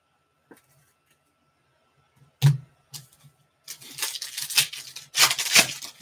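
A trading card pack's foil wrapper being torn open and crinkling through the last couple of seconds. Before it, about two and a half seconds in, comes a sharp knock.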